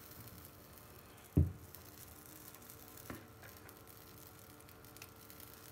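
Pancake batter frying faintly in a nonstick frying pan, with a sudden low thump about a second and a half in and a softer knock about three seconds in.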